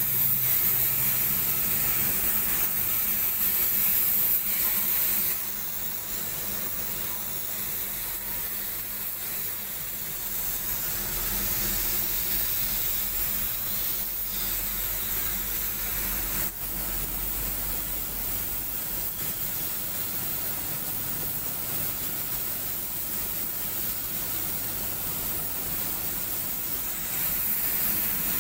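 Gravity-feed air spray gun hissing steadily as it sprays paint onto a car body. The hiss is loudest for the first five seconds or so and again near the end, quieter in between.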